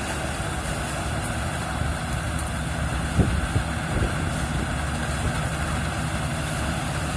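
Combine harvester with a sunflower header running steadily while harvesting sunflowers: a continuous engine drone mixed with threshing noise.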